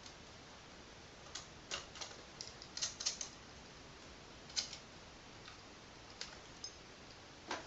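Scattered light clicks and taps of small parts being handled and fitted onto an airsoft rifle's rail, with a quick run of clicks about three seconds in.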